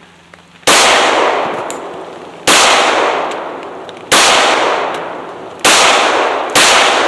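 Glock 21 pistol firing .45 ACP hollow-point rounds: five shots at uneven intervals, each sharp report followed by a long fading echo. Every round goes off, a test of second-hand ammunition that passes.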